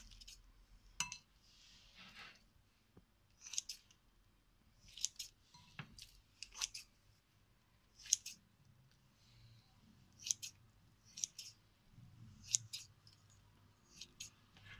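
Kitchen scissors snipping soft roasted eggplant into small pieces, the blades closing with a dozen or so short, sharp clicks at uneven intervals.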